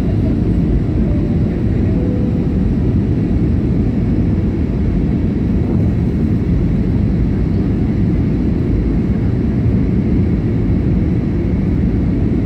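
Steady, deep cabin roar inside an Airbus A320 airliner on approach: engine and airflow noise heard through the fuselage, even and unbroken.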